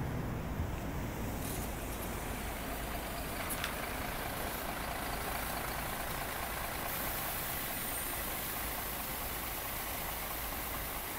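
Articulated city buses at a kerbside stop: a diesel bus pulling away, then a MAN articulated bus driving in along the kerb, engines running over steady road rumble. A high hiss rises in the second half as the MAN bus draws up, with a single short click about three and a half seconds in.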